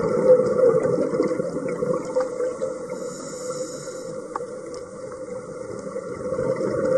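Underwater ambience picked up by a diver's camera: a steady rushing and gurgling of water and air bubbles, louder at first, easing off in the middle and swelling again near the end.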